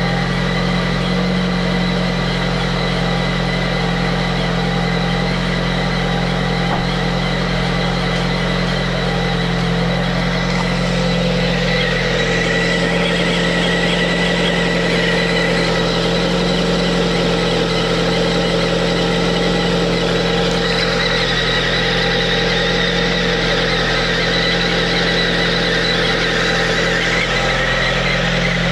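Lada Priora's 1.6 16-valve engine idling steadily from a cold start, with a steady high whistle from the timing-belt area (belts, idler rollers, water pump) that grows stronger about ten seconds in. The whistle comes only on a cold engine in frost and goes away as it warms.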